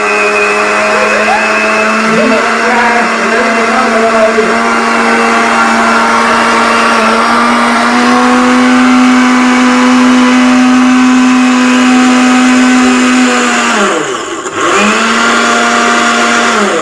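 Bajaj electric mixer grinder's motor running steadily, its pitch stepping up a little partway through. About fourteen seconds in it winds down and stops briefly, then starts up again.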